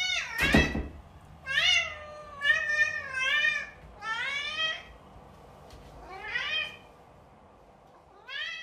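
Domestic cat meowing again and again, about six drawn-out meows that rise and fall in pitch, with a short thump about half a second in.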